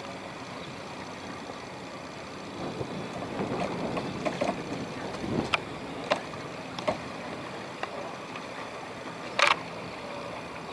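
Water washing along a sailboat's hull with a light wind, steady, with several sharp knocks and clicks from the boat, the loudest near the end.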